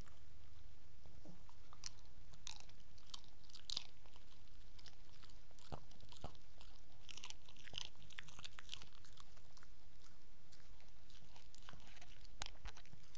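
A Cavalier King Charles Spaniel chewing and smacking on a sausage, with irregular wet clicks and snaps that come in clusters.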